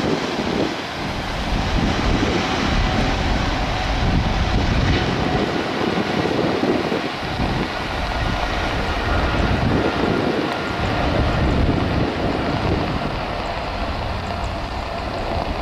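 Boeing 777-300ER's two GE90 turbofans at takeoff thrust on the takeoff roll: a loud, steady jet roar with faint fan tones, with wind buffeting the microphone.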